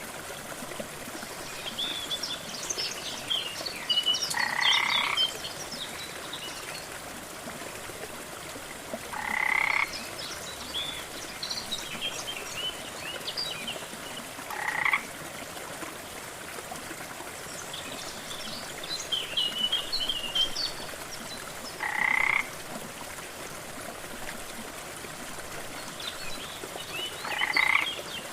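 Frogs croaking, five short calls about five to seven seconds apart, over the steady rush of a waterfall, with clusters of short high chirps in between.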